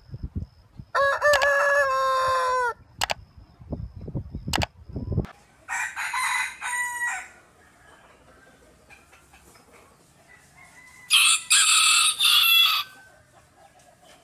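Roosters crowing, three separate crows: a lower crow about a second in that drops in pitch at the end, over a low rumble, then two higher, shriller crows around six seconds and near the end.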